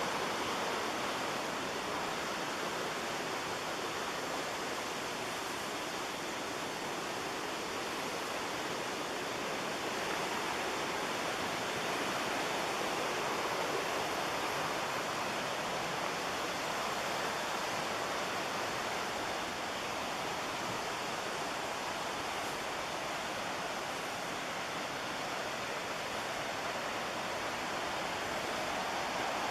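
Steady rush of fast whitewater on the McKenzie River, loud and even throughout.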